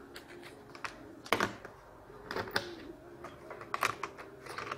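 Irregular light clicks and taps of gloved hands handling the plastic housing of a car navigation unit, with the multimeter probes being set down.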